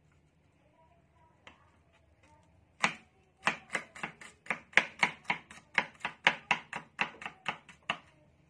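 Cleaver chopping garlic on a cutting board: after a quiet start, a fast run of about twenty sharp chops, roughly four a second, beginning about three seconds in and stopping shortly before the end.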